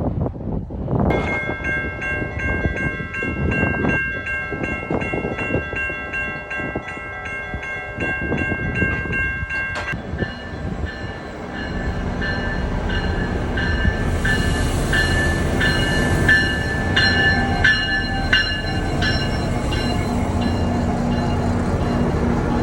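GO Transit commuter train arriving. A bell rings rapidly and evenly for about the first ten seconds, then stops. After that the diesel locomotive and coaches run in with a steady low rumble, broken by high squeals and clanks from the wheels and brakes.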